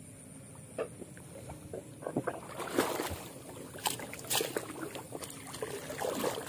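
Shallow water sloshing and splashing, faint at first, then a run of irregular splashes and small knocks from about two seconds in.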